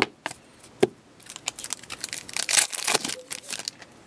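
2015-16 Upper Deck SP Authentic hockey cards and their pack wrapper being handled. There are a few light taps in the first second, then a run of crinkling and flicking as the cards are slid and flipped, busiest in the middle.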